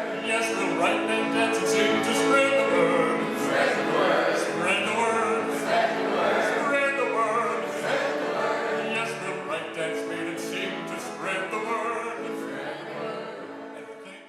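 Music with operatic singing, the voice wavering in vibrato, fading out near the end.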